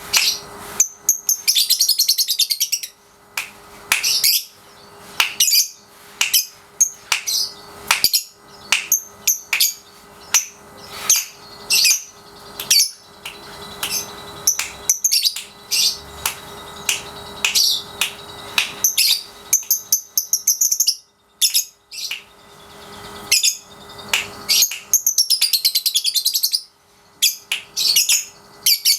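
Young lovebird, about three and a half months old, doing its ngekek: shrill, very rapid chattering in repeated bursts, a few of them drawn out into long trills of two or three seconds as it learns to extend the song. A faint steady hum lies underneath.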